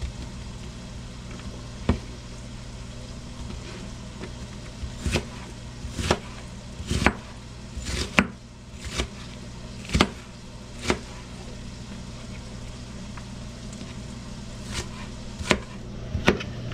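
Chef's knife chopping sweet onion on a cutting board: about a dozen sharp knocks of the blade on the board, roughly one a second, with a pause of a few seconds in the middle, over a steady low hum.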